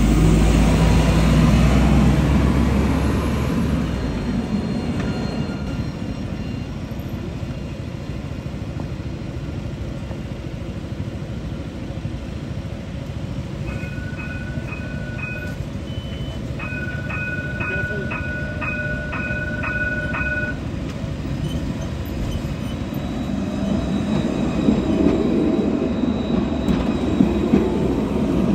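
Electric trams passing on street track: a rumble fades over the first few seconds, then rises again near the end as another tram approaches, with a few sharp clicks. Around the middle comes a run of short two-pitched electronic beeps, four and then about seven.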